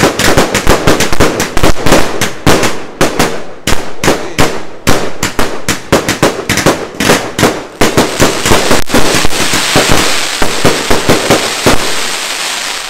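A 50-shot consumer firework cake firing, its shots going off as sharp bangs in quick succession, several a second. Near the end a dense crackling hiss fills in under the last bangs as the crackling stars burst.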